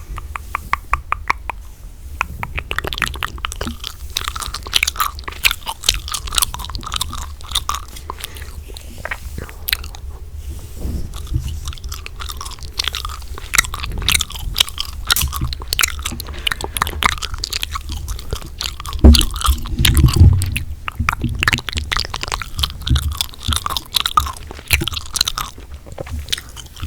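Gum being chewed close to the microphone: a dense run of quick, wet clicks and smacks. A few louder low thumps come about two-thirds of the way through.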